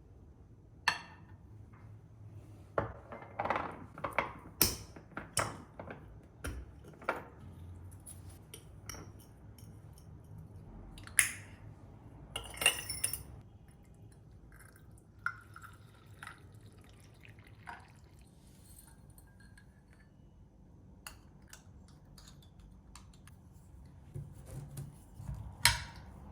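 Kitchen work: a string of sharp clinks and knocks of dishes and utensils being handled, with a few short rustling or pouring stretches.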